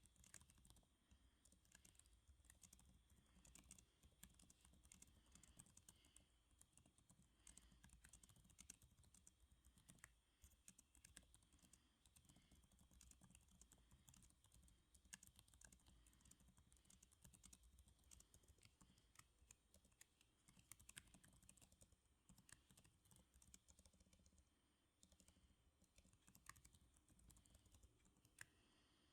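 Faint, continuous typing on a computer keyboard: a quick, uneven run of key clicks that pauses briefly near the end.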